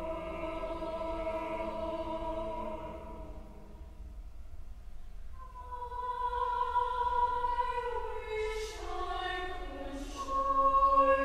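Church choir singing: a held chord fades away over the first few seconds, then a new phrase of sustained notes begins about five seconds in and grows louder near the end.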